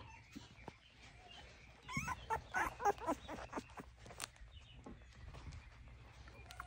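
Alaskan Klee Kai puppies, three to four weeks old, whining and yipping: a run of short, high calls between about two and four seconds in, with fainter whimpers around them.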